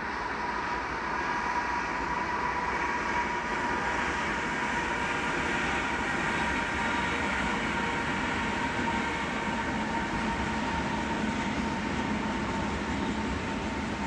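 A freight train passing at a distance: diesel locomotives followed by intermodal container cars rolling by in a steady rumble, with a steady high-pitched tone over it.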